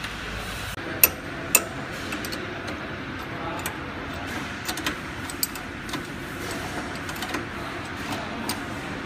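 Small metal-on-metal clicks and taps of hand tools on the bag clamp of a rotary pouch packing machine as it is adjusted by hand, over a steady background hum. Two sharp clicks come about a second in, then lighter scattered ticks later on.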